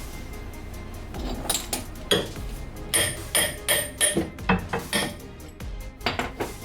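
Metal tools and car parts clanking and clinking: a string of sharp metallic knocks, some with a brief ring, thickest between about one and five seconds in.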